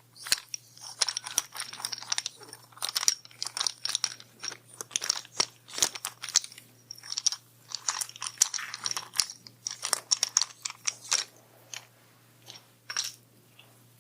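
Close-miked crunchy chewing: someone eating, in a rapid run of crisp crackles that thins out to a few near the end.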